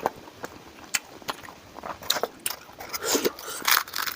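A person eating close to the microphone: chewing and crunching with sharp wet mouth clicks, busier in the second half.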